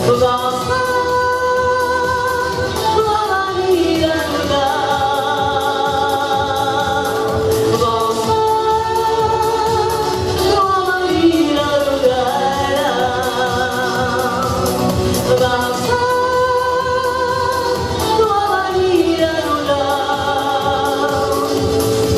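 A pop song being sung over instrumental backing: long held notes with vibrato, each phrase sliding down in pitch at its end, about every seven or eight seconds.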